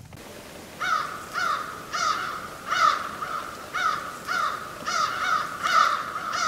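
Crows cawing over and over, about two caws a second, each call short and sliding down in pitch; the calling starts about a second in.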